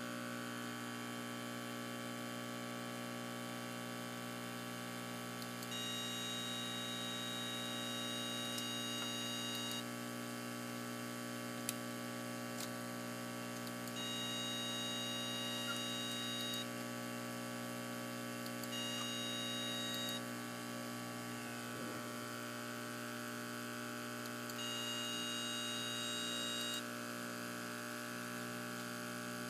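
A steady electrical hum from an aquarium pump providing vacuum. Over it, a 5 V solenoid valve driven by 1 kHz PWM switches on four times, each time giving a high-pitched whine for about one and a half to four seconds before stopping.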